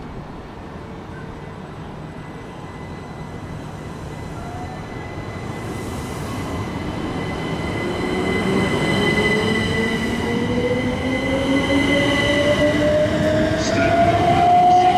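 Electric train accelerating, its traction motors whining in tones that rise steadily in pitch as the train grows louder, over a steady higher ringing tone.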